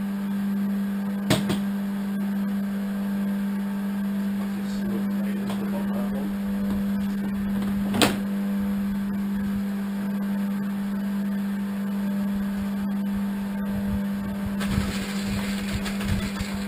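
Small electric motor humming steadily at one fixed pitch, with a sharp knock about a second in and another about eight seconds in.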